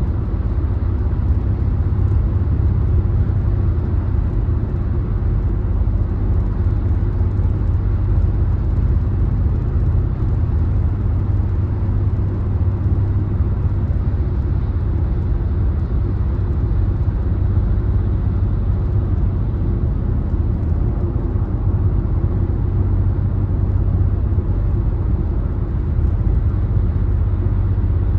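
Car driving at highway speed: steady road noise of tyres and engine, a low, even rumble that does not change.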